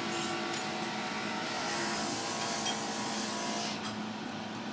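Small fume extractor fan running with a steady whir beside stained-glass soldering work.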